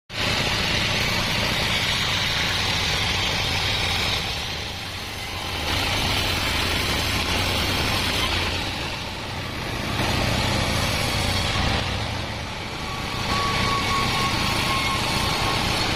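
Diesel-driven band sawmill cutting Wadang wood: the blade hisses through the timber over a steady engine drone, the cutting noise swelling and easing in several passes.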